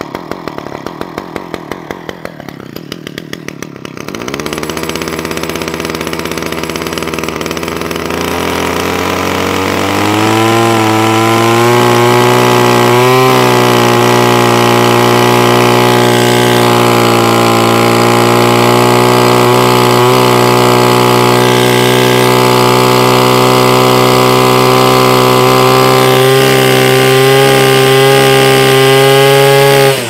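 Titan strimmer multi-tool's small two-stroke petrol engine idling with a rhythmic beat, then revving up about four seconds in and again around ten seconds, and running steadily at high revs from there. The carburettor's top-speed screw is being turned leaner after a new diaphragm, to cure the engine bogging and not staying running.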